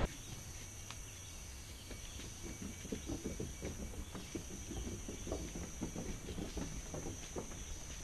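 Footsteps of several people on a wooden boardwalk, irregular soft thumps starting about two seconds in, over a steady high-pitched insect drone.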